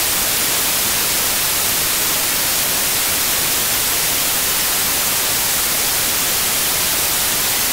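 Television static: a steady, even hiss of white noise that switches on abruptly.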